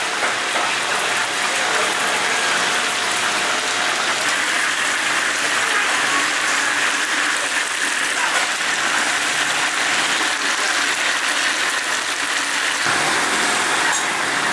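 Food deep-frying in hot oil: a steady sizzle.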